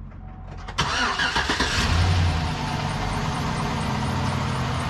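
Gasoline engine of a GMC pickup cranking and starting about a second in, then idling steadily.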